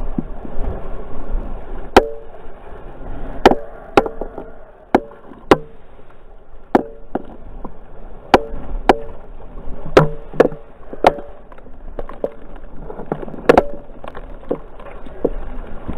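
A series of sharp, irregular knocks, roughly one a second, each leaving a brief ringing tone.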